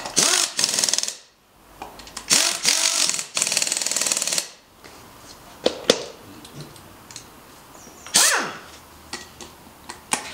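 Impact wrench working on bolts under a motorcycle, run in about four short bursts of fast hammering rattle. The last burst is shorter and rises and falls in pitch.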